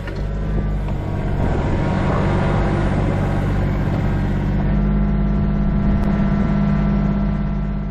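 Mini excavator's diesel engine running steadily, a low hum of several steady tones that grows a little stronger about halfway through.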